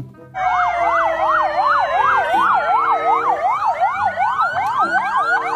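Several ambulance sirens sounding together, starting about a third of a second in: a fast up-and-down yelp, about three sweeps a second, over slower falling wails. Near the end the sweeps change to quick rising whoops.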